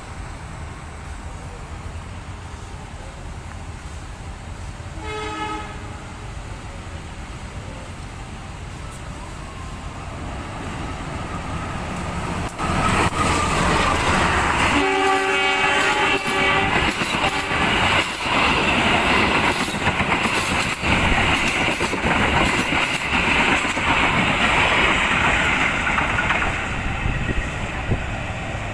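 Train sounding its horn twice: a short, fainter blast about five seconds in, then a louder blast in the middle, as the rumble and clatter of the train swell up and stay loud until near the end.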